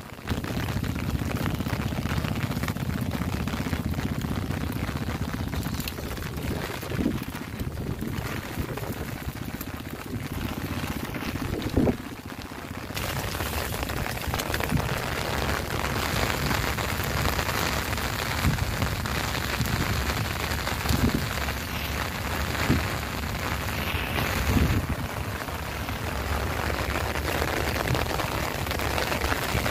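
Heavy rain falling steadily, with a few dull knocks scattered through it.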